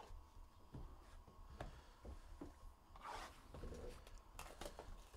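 Faint scratching, rustling and light clicks of fingers picking open a cardboard Panini Prizm Choice trading-card box, with a short crinkly rustle about three seconds in.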